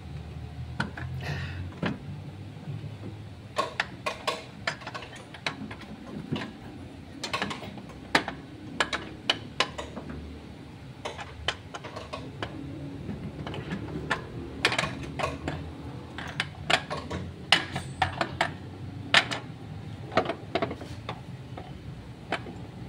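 A socket wrench and metal engine parts clicking and clinking irregularly as bolts are worked loose, some clicks coming in quick runs, over a steady low hum.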